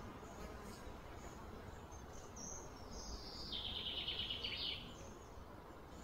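Steady outdoor background noise with a high call from a wild creature. A little over two seconds in, the call glides downward and turns into a rapid buzzing trill lasting about a second and a half.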